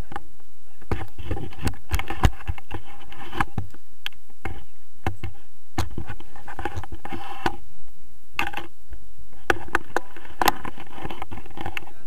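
Wind buffeting an action camera's microphone, with repeated knocks and scraping from the camera mount and paraglider harness.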